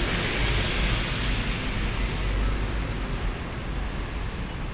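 Road traffic noise from heavy vehicles: a steady rumble of engines and tyre hiss from buses and trucks on a busy road, easing slightly as a passing coach moves away.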